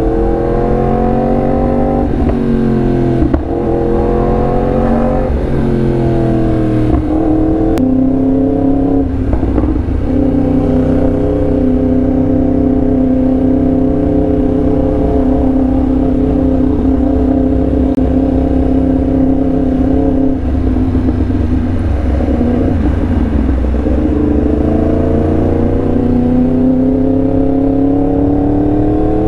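Yamaha R1M's crossplane inline-four engine running under way. The revs rise and fall several times in the first eight seconds, hold steady through the middle, and climb again near the end.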